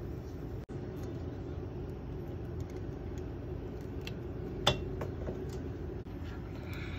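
Steady low rush of a portable butane burner's flame under a hot sandwich maker as its oil heats to smoking, with a few faint ticks. A single sharp metallic clink comes about two-thirds of the way through.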